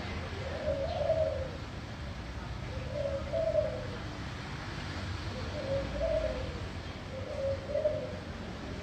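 A dove cooing: a short, low call repeated four times, about every two seconds, over a low steady background rumble.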